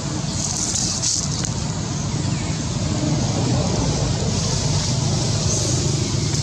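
Steady, low rumbling background noise with an even hiss over it, with no clear single event.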